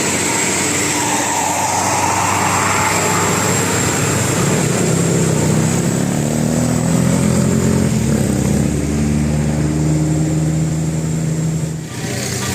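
A heavy vehicle's engine accelerating, its pitch climbing through the middle and then holding steady over road noise, breaking off suddenly near the end.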